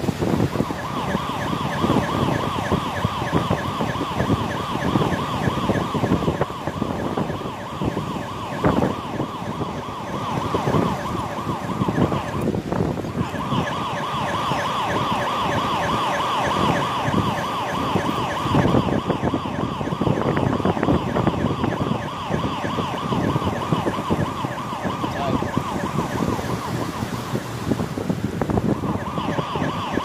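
Police siren blaring with a rapid warbling wail. It breaks off briefly about twelve seconds in and again near the end. Heavy wind rumble on the microphone runs underneath.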